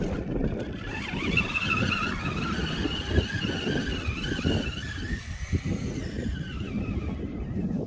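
Electric motor whine of an FTX Kanyon RC crawler driving through shallow floodwater. The whine wavers in pitch and fades out about five seconds in, over a rough low rumbling noise.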